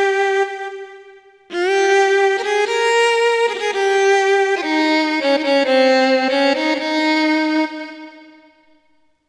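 Roland XPS-10 keyboard playing a violin-like solo patch: a slow single-line melody of held notes that glide into one another. It breaks off just after a second in and resumes, then the last note fades out near the end.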